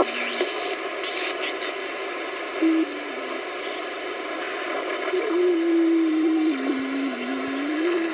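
Static hiss from a President Lincoln radio's loudspeaker with a whistling tone that shifts up and down in pitch in small steps, a heterodyne whistle from a signal heard off-tune. There is a sharp click at the very start.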